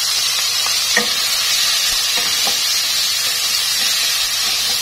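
Diced tomatoes sizzling steadily as they hit hot annatto oil and fried shallots in a nonstick wok and are stirred with a wooden spatula, with a few light knocks of the spatula against the pan.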